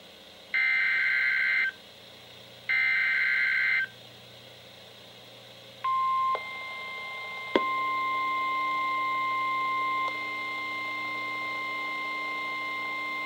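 NOAA Weather Radio EAS alert on weather radios: the last two of three buzzing SAME header data bursts, each about a second long. About six seconds in, the steady 1050 Hz warning alarm tone starts, which signals a warning such as a Severe Thunderstorm Warning. About a second and a half later there is a sharp click, and more steady tones join the alarm.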